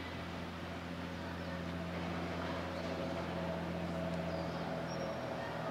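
Low, steady drone of a RORO cargo ship's diesel engine carrying across the water, made up of several steady hum tones. A higher hum grows stronger about halfway through.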